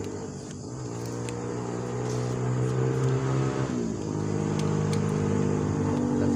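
A motor vehicle's engine running at a steady pitch that drops a step about four seconds in, getting gradually louder.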